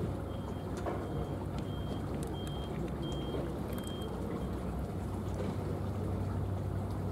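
Steady low drone of an engine running at idle, with a short high beep repeating about every half second that stops about four seconds in.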